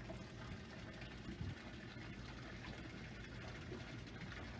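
Steady low mechanical hum, like an engine or motor running, over a faint wash of background noise, with a brief low bump about a second and a half in.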